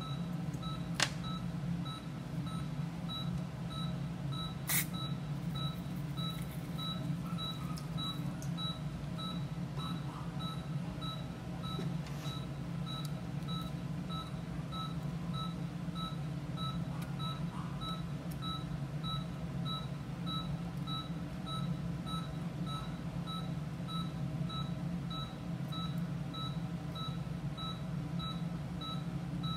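Patient monitor beeping steadily with the anaesthetised dog's heartbeat: short, evenly spaced two-tone beeps, a little under two a second, over a steady low machine hum. Two sharp clicks sound in the first five seconds.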